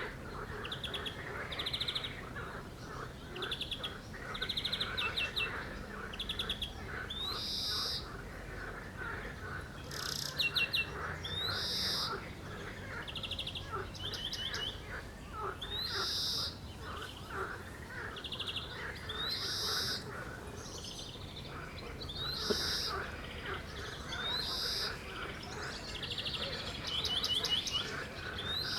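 A songbird singing short, repeated phrases, one every second or two, with a continuous chatter of frogs croaking underneath.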